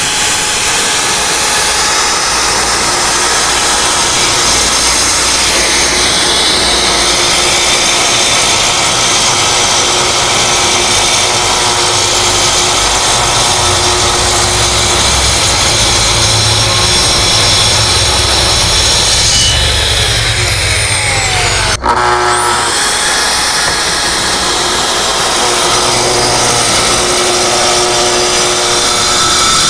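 Festool plunge-cut track saw ripping a thick black walnut slab along its guide rail, a steady high motor whine over the cutting noise. About twenty seconds in the motor winds down with a falling whine, then it is restarted and spins back up a couple of seconds later to carry on the cut.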